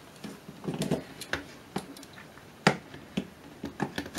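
Sharp clicks and knocks of a plug-in circuit card being slid into its slot in a metal chassis and handled there, about ten irregular taps.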